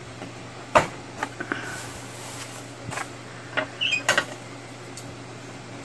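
A book page being handled and set on a paper-craft punch board: a sharp click just under a second in, then scattered lighter taps and paper rustles, with a brief squeak near four seconds.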